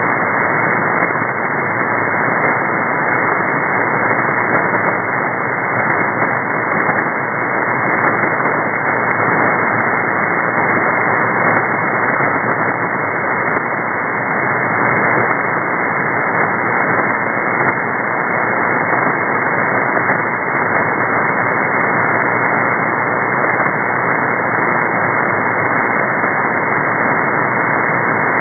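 Shortwave receiver static in upper-sideband mode: a steady hiss, cut off sharply above about 2 kHz by the receiver's narrow filter. It is the sound of an empty aeronautical channel between voice transmissions.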